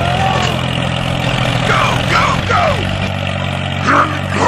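Tractor engine running steadily with a low hum that shifts pitch slightly about halfway through, while short gliding voice-like cries sound over it several times.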